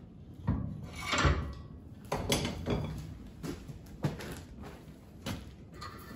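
Steel tools clanking and scraping against a bench vise holding a red-hot tong blank as the smith grips it for a twist. A string of irregular knocks and short scrapes; the loudest and longest scrape comes about a second in.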